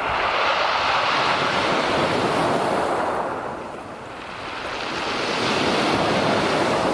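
Black Sea surf: waves washing in, loud then easing to a lull about four seconds in before the next surge builds, with wind noise on the microphone.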